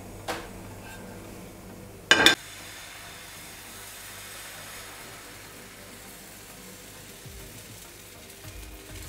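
Thin crêpe batter sizzling steadily in a hot, lightly oiled non-stick frying pan on a gas burner. A short, loud clank about two seconds in comes before the steady sizzle.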